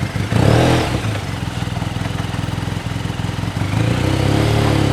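Side-by-side UTV engine idling, with a short loud burst of noise about half a second in. Near the end the engine revs up and holds a higher pitch.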